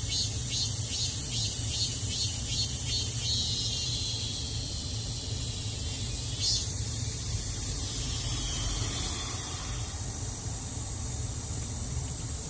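Cicadas calling: a high pulsing call at about two to three pulses a second that merges into a continuous buzz, then a louder, higher buzz from about six and a half seconds in that cuts off abruptly near ten seconds. A steady low rumble runs underneath.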